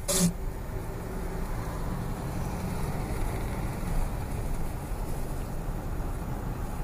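Steady low rumble of a car's engine and tyres, heard from inside the cabin while driving. A short, sharp rustle sounds right at the start.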